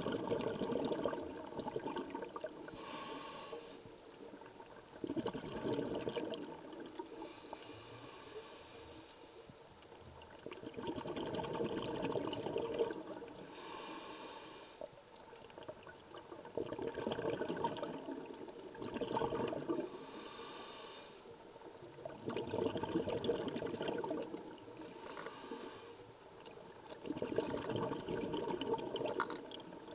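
Scuba diver breathing through a regulator underwater: a short hissing inhale alternates with a longer bubbling exhale, about every five to six seconds.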